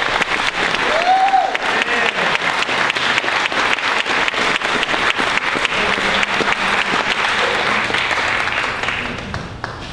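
An audience applauding steadily, dying down near the end, with a few voices among the clapping.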